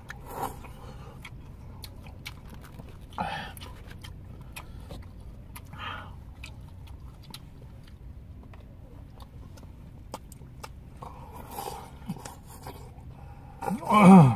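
Two people eating sundae-gukbap, Korean blood-sausage soup, chewing, with many small clicks of chopsticks and a spoon against foam bowls over a low steady hum in a car cabin. Near the end a short voiced grunt with falling pitch is the loudest sound, as broth is drunk from the bowl.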